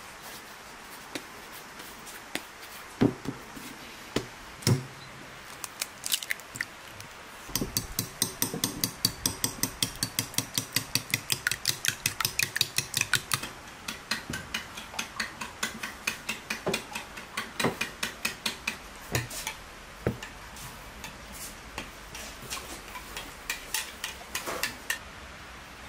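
A fork beating eggs in a ceramic bowl: a fast, even run of clinks against the bowl, about five a second for several seconds. Scattered single knocks and taps come before and after.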